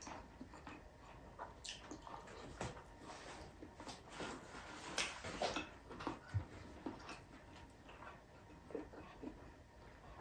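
Close-up chewing and eating sounds: irregular crunches, smacks and small clicks as crispy fried pork belly (liempo) is eaten by hand with rice.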